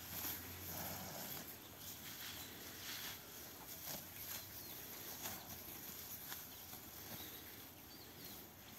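Cattle grazing close by: faint, irregular tearing and cropping of grass as they feed, with a low hum that fades out about a second in.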